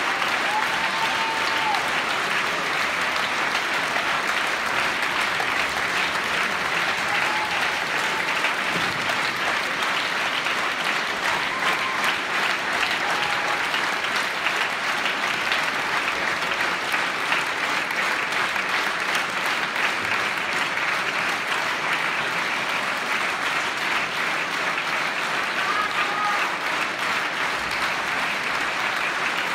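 Large theatre audience applauding steadily, with dense clapping that never lets up.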